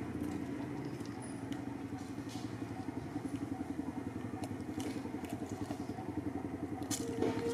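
An engine running steadily with a fast, even pulsing, like one idling.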